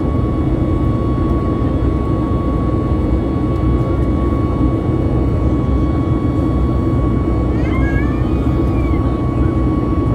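Boeing 737 MAX 8's CFM LEAP-1B turbofan engines running steadily in flight, heard inside the cabin as a dense low rumble with a steady high tone over it. A short high-pitched voice cuts in about eight seconds in.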